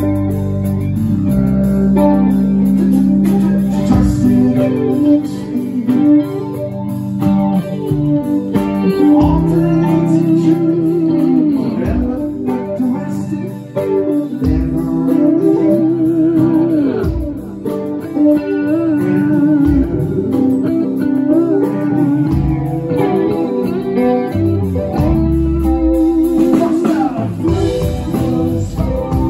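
Live rock band playing, with an electric guitar line that bends up and down in pitch over steady bass and drums.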